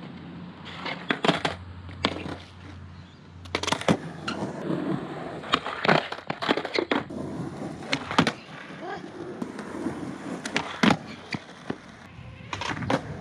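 Skateboard on concrete during flatground trick attempts: a series of sharp pops and clacks as the board is snapped and lands on the ground, with the wheels rolling between them.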